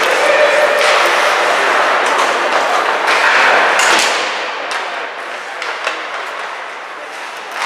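Ice hockey play in an echoing rink: a steady wash of skate and arena noise with sharp clacks of sticks on the puck scattered through. The noise eases off about four seconds in.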